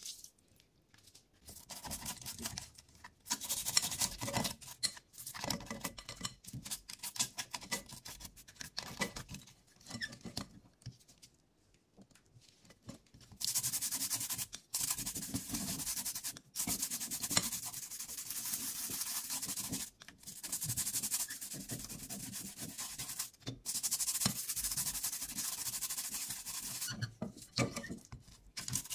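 A toothbrush scrubbing circuit boards wet with isobutyl alcohol: scratchy bristle strokes, choppy for the first half, then steadier and louder scrubbing with short pauses.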